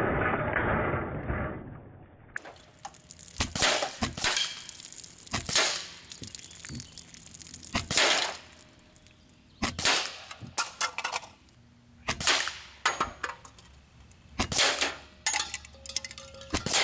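Benjamin Armada semi-automatic .22 PCP air rifle firing a string of shots, each a sharp crack with the pellet's smack or clang on cans and tin targets, often two or three within a second. It opens with about two seconds of rushing noise as a hit drink can bursts and sprays its contents.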